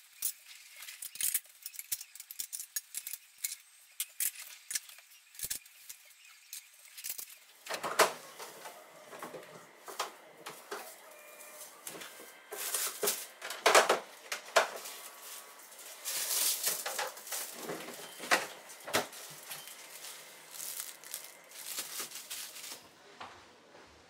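Kitchen handling sounds: light clicks and clinks of things being moved and set down, then from about a third of the way in louder knocks and rustling in stretches of a second or two as food is taken out of the refrigerator's lower drawer.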